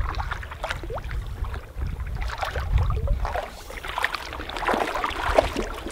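A canoe paddle dipping and pulling through calm water, with irregular splashes and drips from the strokes.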